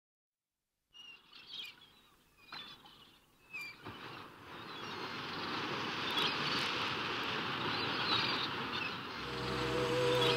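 Scattered bird chirps over a faint background, then a rushing wash of noise that swells over several seconds. Near the end, soft music with long held low notes fades in.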